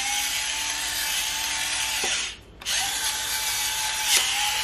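Electric pepper mill running, its small motor grinding peppercorns with a steady whir. It stops for a moment about two seconds in, then starts again.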